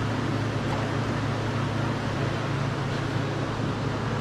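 Steady droning hum with an even hiss, like an air conditioner or fan running, unchanging throughout.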